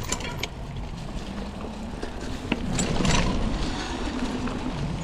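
A mountain bike rolling down a dirt trail: a steady rumble of wind on the microphone with scattered sharp knocks and rattles, and a louder rush of noise about three seconds in.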